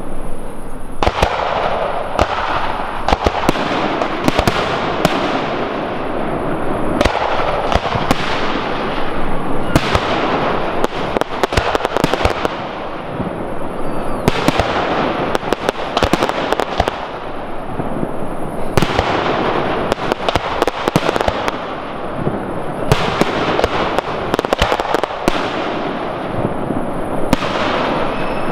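Large professional fireworks display, with aerial shells and batteries firing and bursting in rapid, nearly continuous succession. Many sharp reports ride over a dense crackling wash, with no break.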